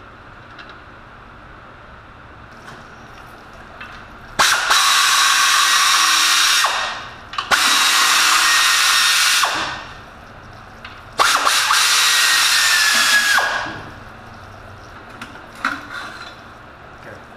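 A handheld power tool runs in three bursts of two to three seconds each, with short pauses between, loosening fasteners. A few light metal clicks follow near the end.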